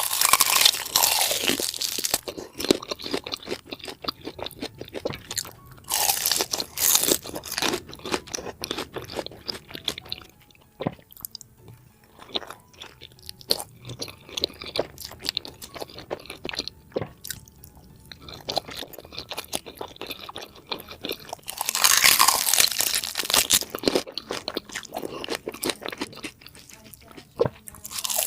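Close-miked crunching and chewing of spicy pork head, wet crackly bites going on throughout, with several louder spells of crunching, the longest about three seconds, near the end.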